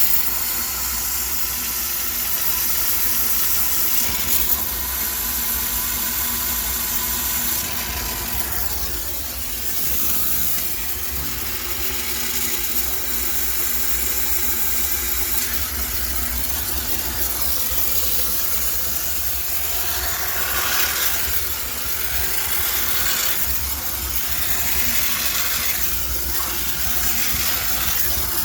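High-pressure steam cleaner jetting steam with a steady hiss over the low running of its unit, the hiss swelling and easing as the nozzle is worked over a washing machine.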